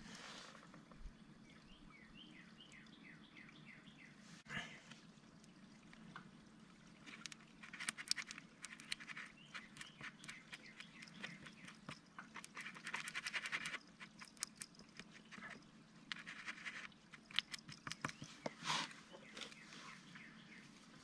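A flat wooden stick stirring and scraping stone epoxy paste with hardener on a plywood board, in runs of quick scraping clicks through the middle stretch and again near the end. A bird gives a quick series of falling chirps about two seconds in, over a steady low hum.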